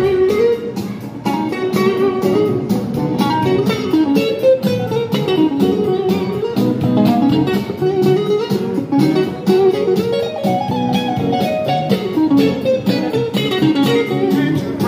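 Stratocaster-style electric guitar played through a small portable speaker: a continuous bluesy rhythm-and-blues riff with single-note melodic lines that climb and fall.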